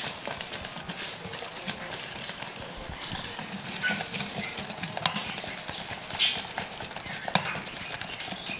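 Wire whisk beating egg and sugar in a glass bowl: a fast run of light clicks and taps as the wires strike the glass, with a louder scrape about six seconds in.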